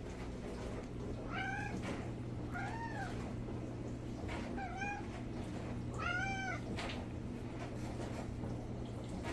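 F4 Savannah cat meowing four times in short, high calls that rise and fall in pitch, a second or two apart.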